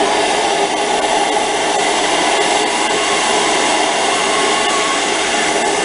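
Handheld gas torch burning steadily with a loud, even hiss, its flame held on a copper fitting to heat it for brazing.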